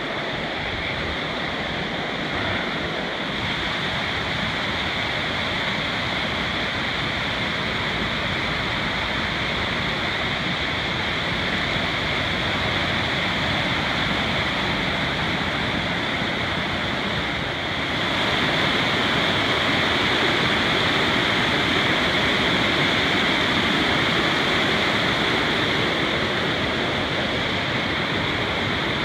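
Rushing mountain creek cascading over rocks: a steady rush of water that grows louder about two-thirds of the way through.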